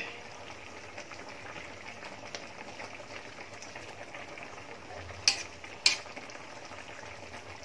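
Coconut-milk sauce simmering in an aluminium wok with a steady low bubbling hiss as a metal spatula is worked through it. About five and six seconds in, the spatula knocks twice sharply against the wok.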